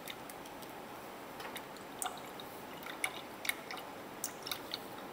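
Liquid trickling slowly from one glass beaker into another, giving small, irregular drips and ticks against the glass.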